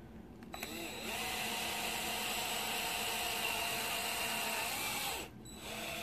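Cordless drill boring a 13/64-inch hole through a 3D-printed plastic part. The motor whine rises as the drill spins up about half a second in, runs steadily for about four seconds, stops, then runs again briefly near the end.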